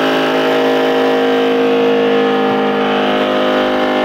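Loud, steady machine drone holding one pitch, like an engine or motor running.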